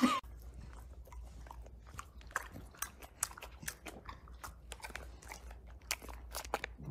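A bulldog crunching and chewing hard dog treats: faint, irregular crunches, several a second.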